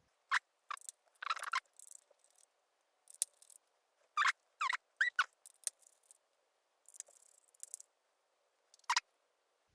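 Scattered small clicks, taps and short scrapes of a precision screwdriver and fingers handling the opened iPad's aluminium case and internal parts, with a few brief squeaks around the middle.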